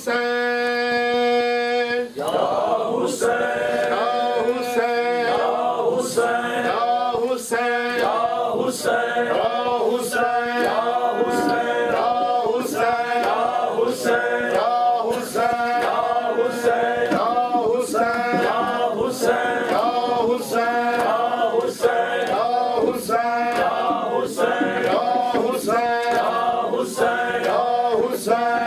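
Men's voices chanting a Muharram noha lament unaccompanied, opening with one long held note and then going on in a steady rhythm. Regular sharp slaps keep time with the chant, the chest-beating of matam.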